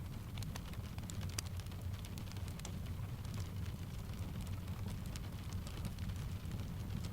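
Steady rain tapping on a window, blended with a fireplace softly crackling: many scattered sharp crackles and taps over an even low rumble.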